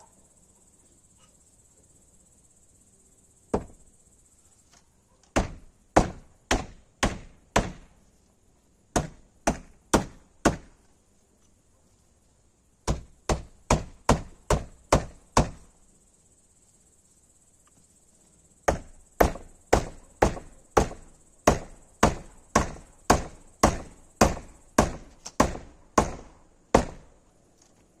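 A hammer driving nails: runs of sharp, even blows about two a second, with short pauses between runs. A steady high cricket chirring sounds underneath at the start and again in the second half.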